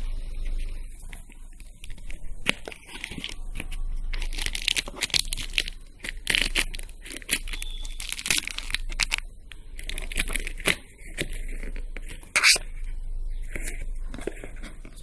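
Headphone box packaging being torn and opened by hand: irregular tearing, scraping and crinkling with many sharp clicks, and one loud snap about twelve seconds in. A steady low hum runs underneath.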